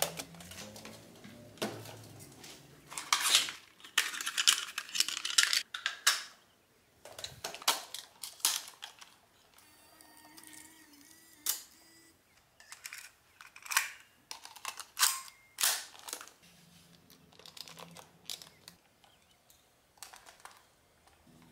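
Sony Handycam DCR-TRV6 MiniDV camcorder being handled: a run of sharp plastic clicks and knocks as its controls and cassette compartment are worked. There is a brief whirring tone about ten seconds in.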